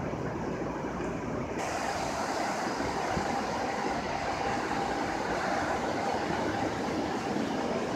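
Steady rushing outdoor background noise with no distinct events, of the kind street traffic makes; it brightens a little about a second and a half in.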